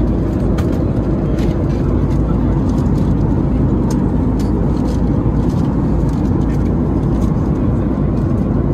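Cabin noise inside a Boeing 737 MAX 8 airliner: a steady low rumble of engines and airflow, with a few faint clicks.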